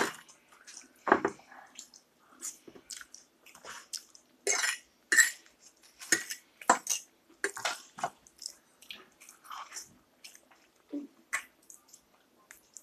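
Close-up eating sounds: wet chewing and mouth smacks in short, irregular bursts.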